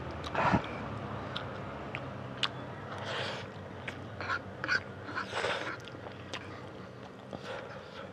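Close-miked eating of spicy fried instant noodles: chewing and mouth sounds, a metal fork clicking and scraping on a wooden board, and three loud breathy slurps or breaths, over a low steady hum.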